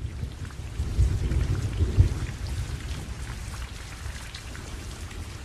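Rain falling on leaves and plants, a steady hiss with scattered small drop taps. A low rumble runs under it, swelling about one and two seconds in and fading by halfway.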